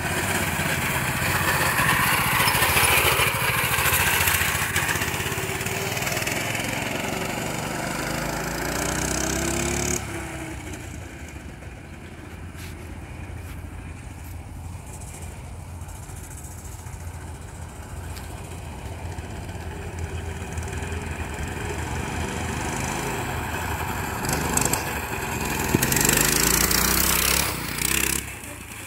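Minibike's small engine running as it is ridden, its pitch rising and falling with the throttle. It is loud up close for the first third, much fainter while the bike is far off, and loud again near the end as it comes back close.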